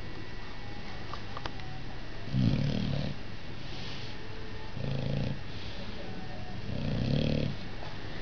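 Shar-Pei dog snoring in its sleep: three low, rumbling snores about two and a half seconds apart, with softer breathy sounds between them.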